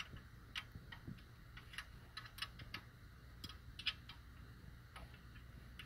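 Light, irregular metallic clicks and ticks of a wrench working the valve-adjuster lock nuts on a Detroit DD15 engine's rocker arms as they are loosened, over a faint steady hum.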